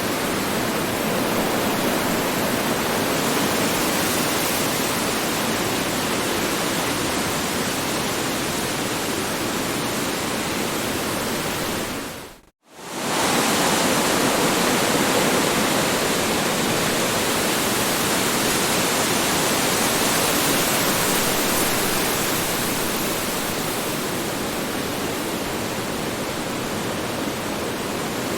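Strong wind blowing as a steady, dense rushing noise. About halfway through it briefly fades out to near silence and then swells back in.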